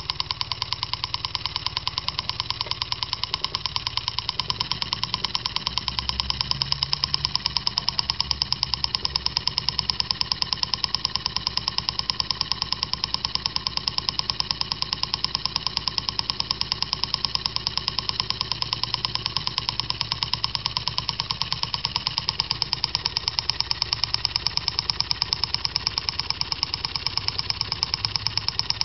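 Homemade gamma-type Stirling hot-air engine with a paper power cylinder running steadily at speed, its single crankshaft, connecting rods and flywheels making a rapid, even clatter.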